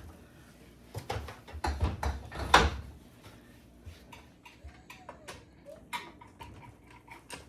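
Clunks and knocks of a table saw being set and fitted onto its rolling stand, the loudest about two and a half seconds in, followed by light clicks and taps.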